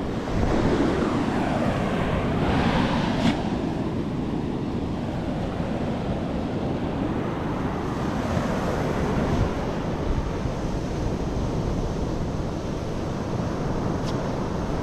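Surf breaking and washing up a sandy beach, with wind rumbling on the microphone; a wave swells to its loudest in the first few seconds, then the wash settles back into a steady rush.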